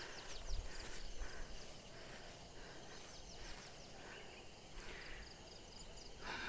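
Countryside ambience: many short, high chirps repeating quickly and overlapping throughout, with a low rumble on the microphone in the first second or so.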